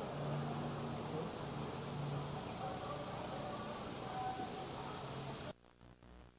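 A steady high-pitched insect trill over faint background hum and hiss on an old VHS tape recording. The sound cuts off suddenly near the end, where the tape breaks up.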